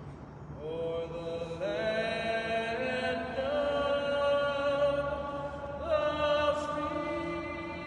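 A man singing solo and unaccompanied, in slow, long-held notes that glide from one pitch to the next, starting about half a second in.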